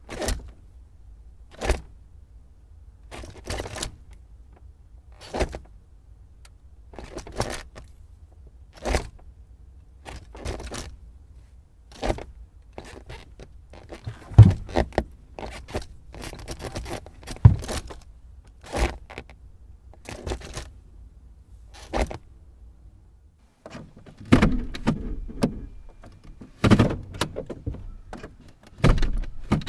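Car gear lever being shifted again and again, a sharp clunk every one to two seconds over a low steady hum. The hum stops about three quarters of the way through, and the last few shifts come as longer rattling clusters.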